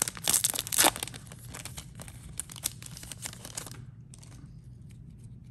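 Wrapper of a Topps baseball card pack being torn open and crinkled by hand, with many sharp crackles. It stops a little over halfway through, leaving only a few faint ticks.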